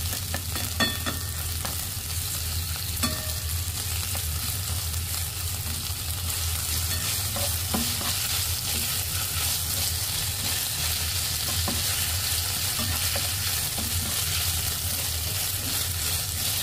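Chicken breast and konnyaku noodles sizzling in sesame oil in a nonstick pan while being stirred, with a few light clicks of the utensil against the pan in the first eight seconds, over a steady low hum.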